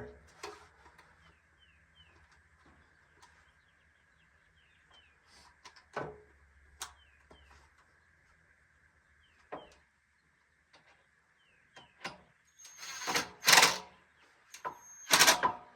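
Scattered light clicks and knocks of parts being handled, with faint bird chirps. Near the end come two short runs of a power drill-driver, the second shorter, driving a screw into the chair's hard plastic.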